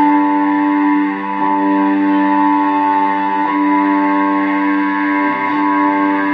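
Electric guitar in open C tuning playing long, sustained notes that ring together into a steady, drone-like chord. A lower note comes in about five seconds in.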